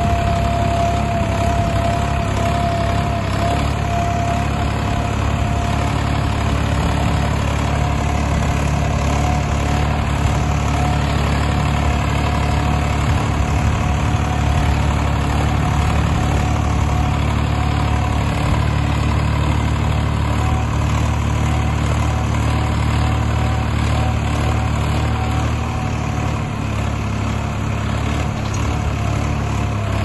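Swaraj 963FE tractor's diesel engine running steadily under load as it pulls a two-bottom reversible mouldboard plough through the soil, with a thin steady whine above the deep engine rumble.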